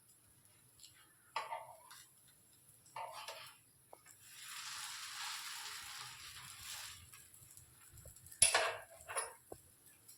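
A spatula knocking and scraping against a pan of bread tikkis frying in oil, a few separate clatters, with about three seconds of oil sizzling in the middle.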